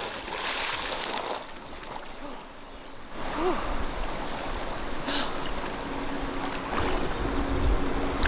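Splash of a person jumping off a sailboat into the sea, with the water churning for a second or so, then water splashing and lapping as she swims. A low rumble runs under the second half.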